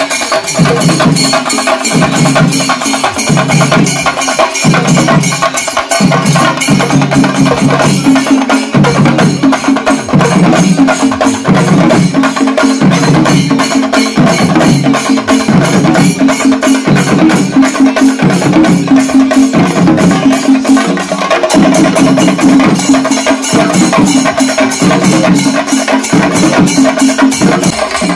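Fast drum-and-cymbal percussion: rapid, even stick strokes over a ringing metallic wash, with a deeper beat swelling about once a second.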